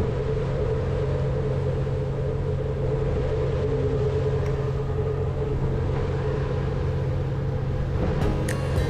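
Ferry's engines droning steadily, a low rumble with a constant hum, mixed with wind and wash noise on the open deck. Guitar music comes in near the end.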